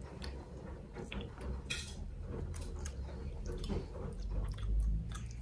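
Quiet handling noises from paper milkshake cups with plastic lids and straws: scattered small clicks and knocks over a low rumble.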